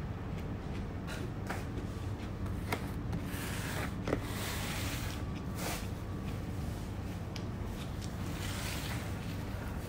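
Small clicks and smacks of eating rice by hand, with paper rustling as tissues are pulled from a tissue box around the middle and again near the end, over a steady low hum.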